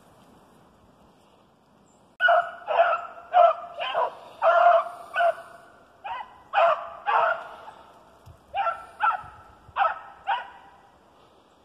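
Rabbit-hunting hound barking on the chase: a quick string of about a dozen short, pitched barks, starting about two seconds in, in two runs with a brief pause between them.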